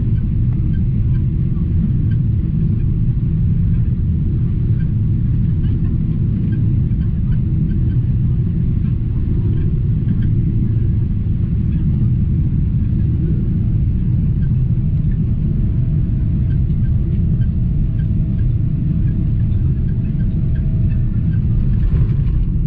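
Steady low rumble of a Boeing 777-200ER heard from a cabin window seat over the wing, on final approach with flaps extended: engine and airflow noise. A faint steady whine joins about two-thirds of the way through.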